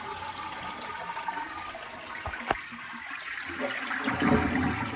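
Newly fitted toilet being flushed: water rushing through the pan, with a sharp click about halfway through.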